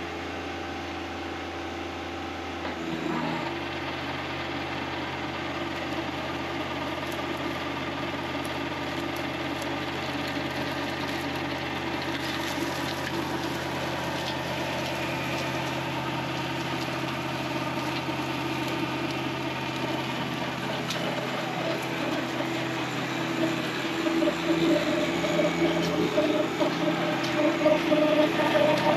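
A compact tractor's diesel engine runs steadily under load while it drives a PTO flail mower with hammer flails through grass and blackberry vines. The engine note shifts about three seconds in, and the sound grows louder near the end as the tractor comes close.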